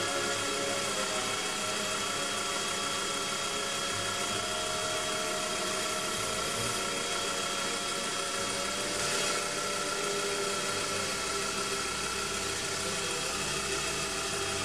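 Proxxon PD 250/e mini lathe running steadily with a light cut being taken across the face of a small brass-lined part.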